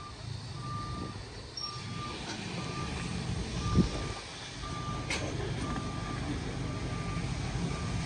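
Vehicle reversing alarm beeping a steady single tone about once a second over a low engine rumble, with a sharp click about five seconds in.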